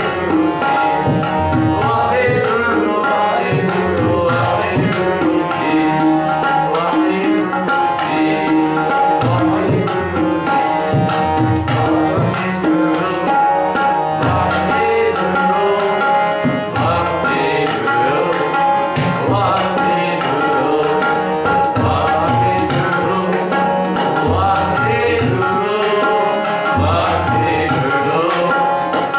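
Sikh kirtan: a man singing a devotional hymn to a harmonium, with tabla accompaniment.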